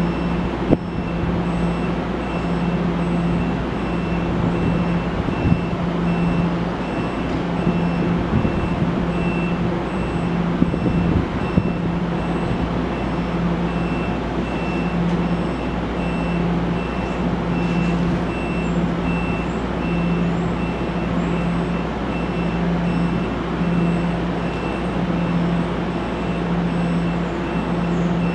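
Steady hum from a stopped electric commuter train, with an evenly pulsing beep tone repeating about once a second, and a few light clicks.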